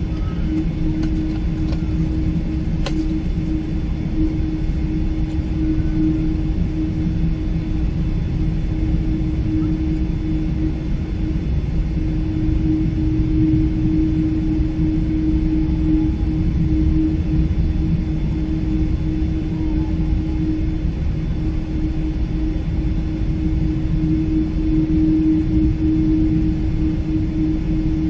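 Boeing 777-300 airliner cabin noise from the rearmost seat: a steady low engine drone and rumble with a constant hum, neither rising nor falling.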